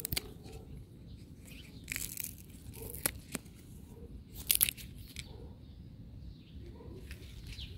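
Fresh green stalks being snapped and torn off growing plants by hand: a handful of short, crisp snaps, the loudest about four and a half seconds in.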